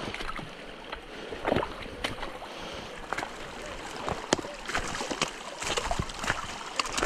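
Footsteps crunching and splashing along a shallow forest creek between snowbanks, over the steady rush of running water. Many short irregular crunches and splashes.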